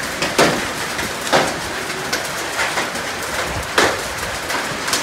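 Rain mixed with hail pelting down on a concrete path and the surroundings: a steady hiss, with a few sharp, louder hailstone hits standing out.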